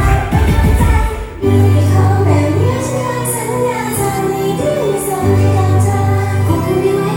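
Idol pop song with female singing over a steady backing track; the music drops out for a moment a little over a second in, then the bass and vocal line come back in.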